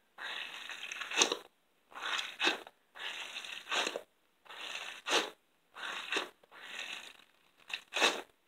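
A rubbery stress ball filled with Orbeez water beads being squeezed over and over, a squishing, crunching sound about once a second.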